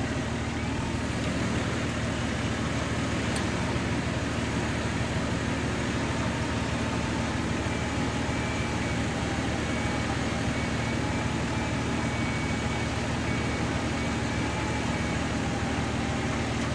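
Four-wheel-drive engine running steadily during a mud recovery, with a thin steady whine from the winch motor joining about halfway through.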